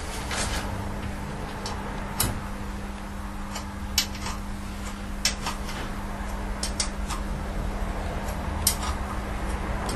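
Scattered metal clicks and clinks as bolts and a spanner work on a steel engine front plate, about seven separate knocks in ten seconds, with a steady low hum underneath.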